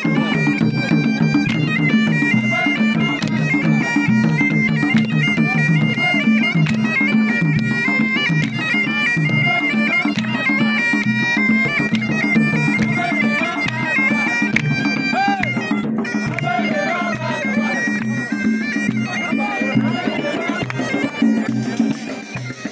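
Traditional Emirati folk music: a reedy wind instrument plays a sustained, stepping melody over a steady beat of hand-held frame drums and a barrel drum.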